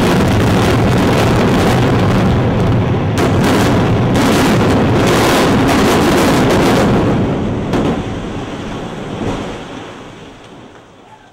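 Explosive demolition of reinforced-concrete hotel towers. A heavy rumble of the collapse is broken by several sharp cracks of the charges, then the rumble dies away over the last few seconds.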